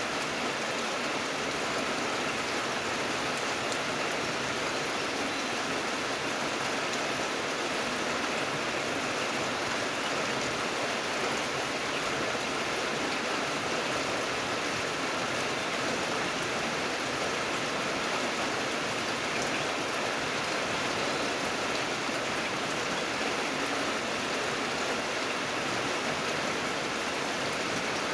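Steady rain falling, an even hiss of many drops with no breaks.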